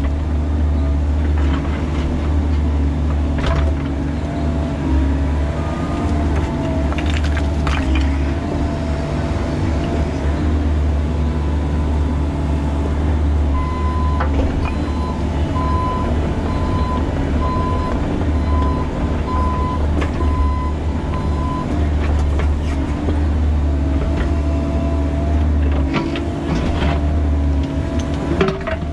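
Bobcat E45 mini excavator working, heard from its cab: the diesel engine runs steadily under load with a wavering hydraulic whine, and the bucket knocks now and then against rock.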